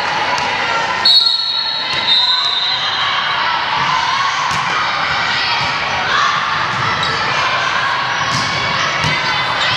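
Indoor volleyball rally: a referee's whistle blows about a second in, over steady chatter and calls from players and spectators in a gym, with the thuds of the ball being served and played.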